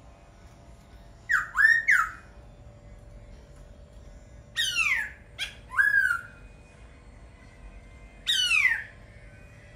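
Laughingthrush singing: three short, loud phrases a few seconds apart, each of one to three sharp notes that sweep steeply down in pitch and hook back up. A faint steady hum lies underneath.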